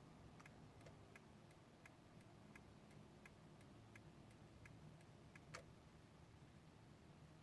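Turn-signal indicator ticking in the cabin of a 2012 Honda Odyssey, about three even ticks a second, ending with one louder click after about five and a half seconds. A faint low hum sits underneath.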